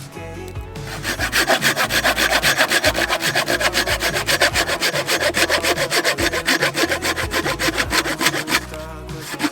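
Saw cutting through a piece of firewood in fast, even back-and-forth strokes, a check of whether the wood is dry. The wood sounds dry. The strokes stop briefly near the end, then start again.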